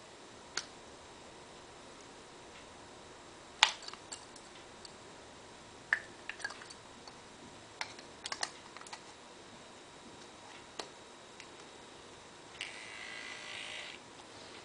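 Scattered small plastic clicks and taps as a battery-powered mini pocket massager's twist cap is turned and its white plastic casing is pulled apart and fitted back together around the battery, the sharpest click about three and a half seconds in. A short steady rasp follows near the end.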